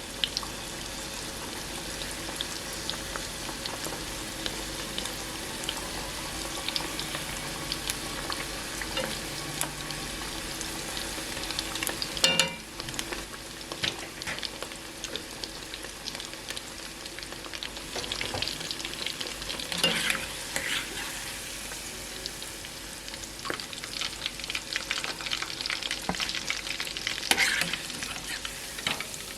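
Starch-and-egg-coated shrimp frying in hot oil: a steady sizzle with crackles. There is a sharp knock about twelve seconds in.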